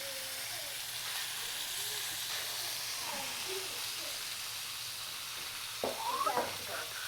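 Thick 58 oz tomahawk ribeye steak sizzling steadily as it sears on a hot flat-top griddle, just after being turned over. There is a brief louder patch about six seconds in.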